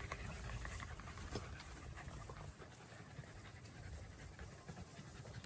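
Beagle panting steadily, quietly.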